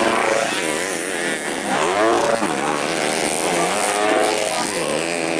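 Racing motorcycle engines on a dirt track, several bikes revving hard, their pitch rising and falling again and again as the riders work the throttle through the corners.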